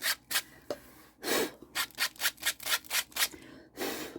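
Quick rubbing strokes on paper or card, about five a second in the middle, with two longer, heavier strokes about a second in and near the end.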